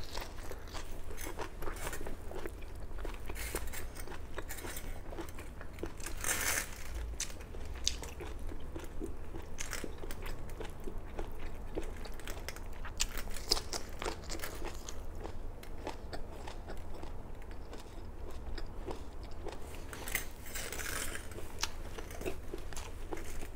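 Close-miked mouth sounds of someone eating vegetables: biting and chewing with many small crunches and wet clicks.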